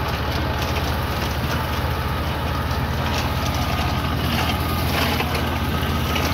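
Tractor engine running steadily under load as it drives the hydraulic arm and comb head of a Viviani umbrella olive harvester, a continuous low drone.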